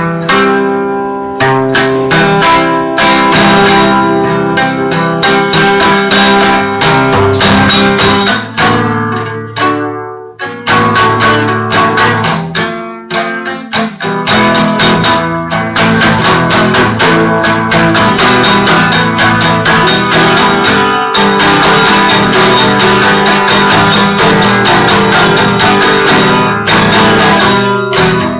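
An acoustic guitar played with rapid strummed chords, pausing briefly about ten seconds in.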